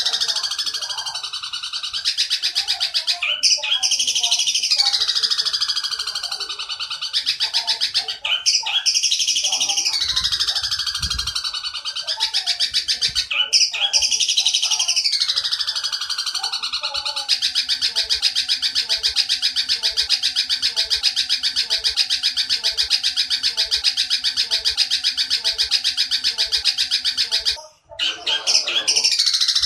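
Looped birdsong tutor recording: high, falling, wailing calls repeat about every two seconds over busy chirping. About seventeen seconds in, a long unbroken rapid chatter, the Eurasian tree sparrow's long 'nyerecet' chatter, runs for about ten seconds. After a brief cut near the end, the falling calls return.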